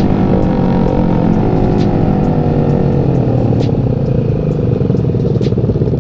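Stock Yamaha Jupiter MX 135's single-cylinder four-stroke engine winding down as the motorcycle slows to a stop. Its pitch falls steadily, then settles into a low, uneven idle about four seconds in.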